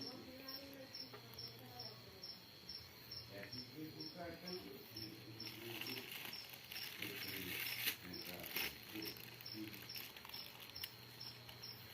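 Crickets chirping in an even, high-pitched pulse, about three to four chirps a second, with faint voices in the background. A brief rustling, crackly burst comes about eight seconds in.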